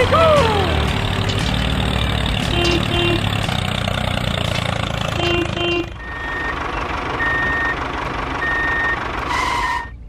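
Heavy vehicle engine running steadily, with short paired beeps twice. After about six seconds the sound thins and a back-up alarm beeps slowly, about once a second.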